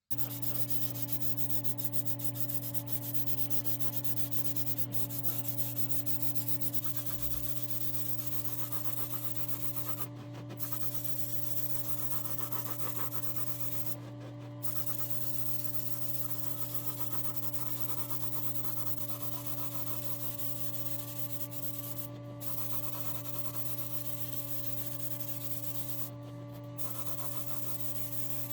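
Electric power tool running with a steady motor hum while an abrasive works over rusty metal parts, giving a harsh sanding hiss. The hiss drops out briefly about four times when the abrasive leaves the work, while the hum runs on.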